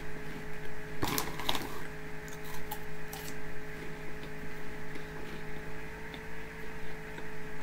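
Quiet eating of Old Dutch Popcorn Twists, a light puffed corn snack: a few short crackly clicks about a second in and a few fainter ticks later, over a steady hum.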